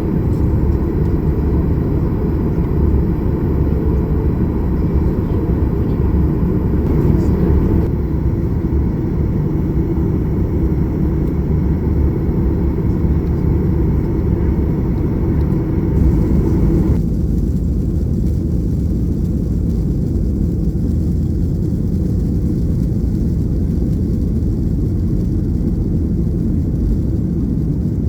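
Steady low rumble of a Boeing 737-800 airliner, jet engine and airflow noise. Its tone changes abruptly twice.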